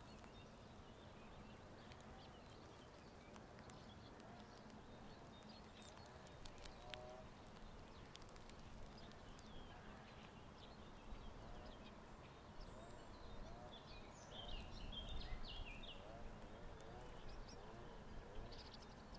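Faint outdoor ambience with scattered birdsong: soft, repeated low calls throughout and a brighter burst of high chirps about three-quarters of the way through.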